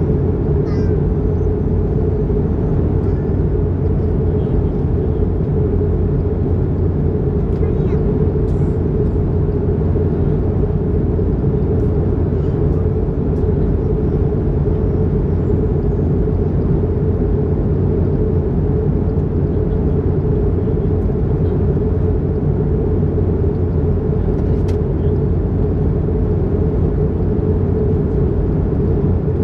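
Steady cabin noise of an Airbus A220-300 in flight, heard at a window seat over the wing: a loud, even rumble of its Pratt & Whitney PW1500G geared turbofans and the airflow, strongest at low pitch and without change.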